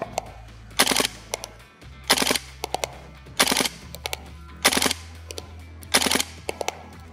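GHK Steyr AUG gas blowback airsoft rifle firing short full-auto bursts, about one burst every second and a bit, each a quick string of sharp cracks from the bolt cycling.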